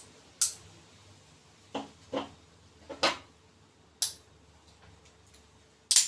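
Metal-framed folding knives clacking and clicking as they are handled, set down on a tabletop and picked up: about seven sharp clicks at uneven intervals.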